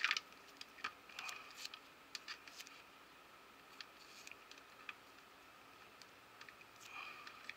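Vinyl electrical tape peeling off the roll and crackling as it is wrapped around a small USB connector housing, with scattered light clicks of handling. The loudest crackle comes right at the start.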